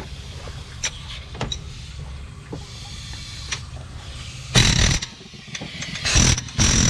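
Two short, loud bursts from an air impact wrench driving a fan clutch wrench on the fan clutch nut, a little past halfway and near the end, as the nut breaks loose. Before them, a steady low hum with a few light clicks.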